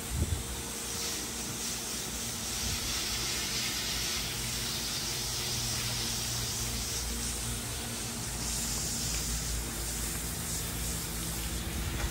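Water from a garden hose spraying steadily onto a horse's wet coat during a bath, a continuous hiss and splash. There is a brief thump right at the start.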